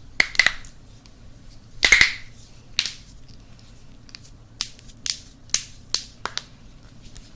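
Knuckle joints cracking: a string of about nine sharp pops at uneven intervals, the loudest about two seconds in.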